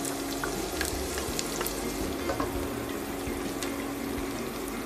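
Freshly added chopped onions sizzling in hot oil in a nonstick pot, stirred with a wooden spatula that scrapes and taps lightly on the pan now and then. A faint steady hum sits underneath.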